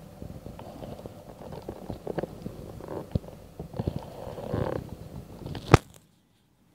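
Handling noise from a handheld camera: irregular rubbing and small clicks and knocks as it moves. A single sharp, loud click comes near the end, and then the sound cuts off.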